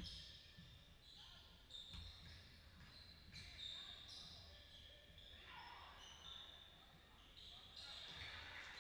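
Basketball bouncing on a gym floor, a few faint thuds, under faint indistinct voices.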